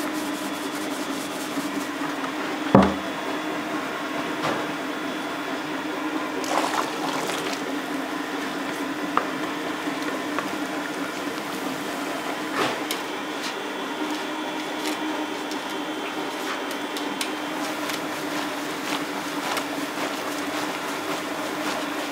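Food-factory machinery running with a steady hum, scattered light clicks and a sharp knock about three seconds in.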